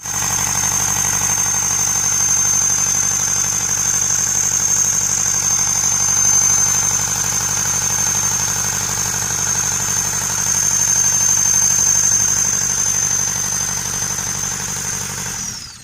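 Perkins diesel engine of a forklift running steadily at idle, with a steady high-pitched whine over the engine note. The sound stops abruptly at the end.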